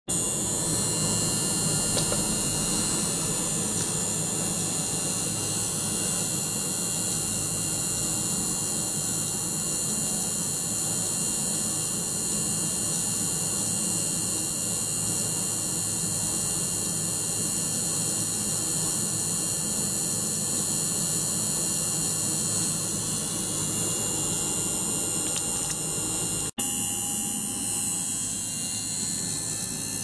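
Small ultrasonic cleaner running with its water circulated by a small pump: a steady high hiss with several constant high tones over a low hum. It briefly cuts out near the end.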